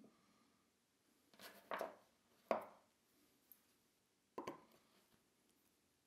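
Needle-nose pliers pushing small model railroad track spikes into a wooden jig: a few short clicks and knocks, the sharpest about two and a half seconds in, with another pair a couple of seconds later.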